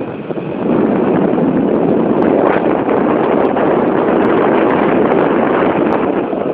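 Steady rushing noise of a moving vehicle with wind buffeting the microphone, growing louder about a second in.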